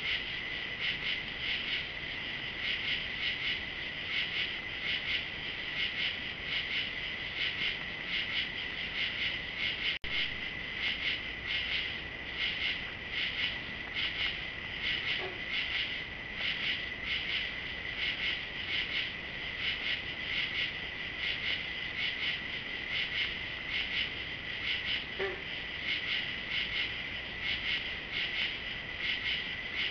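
Night chorus of crickets and other insects: a steady high trill with a rhythmic pulsing laid over it, broken by a momentary dropout about a third of the way in.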